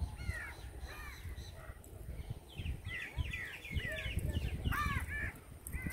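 Crows cawing repeatedly, a few calls at first and then quick runs of caws through the middle and near the end, over a low fluttering rumble.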